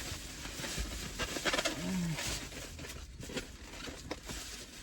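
Rustling and light clicks of a paper takeout bag and food containers being handled, with a brief low hum-like tone about two seconds in.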